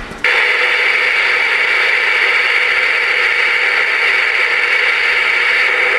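Ranger RCI-69FFC4 ten-meter radio receiving band static through its speaker with no station transmitting: a steady, even hiss that comes on abruptly just after the start, once the last station unkeys.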